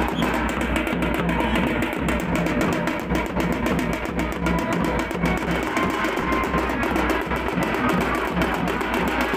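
Music with fast, continuous drumming on a stick-beaten drum and a steady low pulse underneath.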